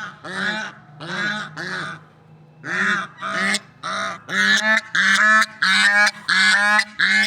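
Swans calling over and over in short, pitched calls. Three calls, a brief pause about two seconds in, then a quicker, louder run of calls roughly every half second.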